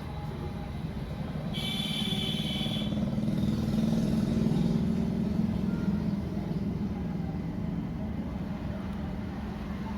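Low engine rumble of a passing road vehicle, growing louder to a peak about four to five seconds in and then fading, with a brief high tone about two seconds in.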